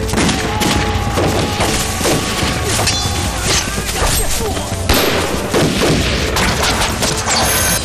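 Film battle sound: a dense fusillade of rifle and pistol shots with men shouting, many shots overlapping throughout.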